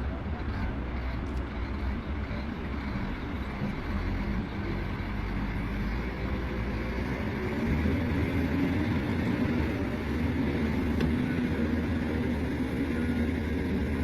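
Diesel engine of heavy earthmoving machinery running steadily. About halfway through it grows louder, with a more pronounced pitched hum.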